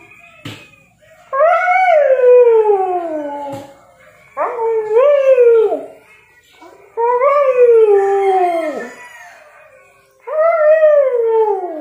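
A sleepy Siberian husky howling: four drawn-out howls a few seconds apart, each rising briefly and then sliding down in pitch.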